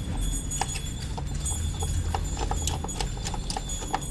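Irregular clicks and light knocks, several a second, of hand tools and parts being handled while a motorcycle's side panel and air filter are taken off, over a low steady hum.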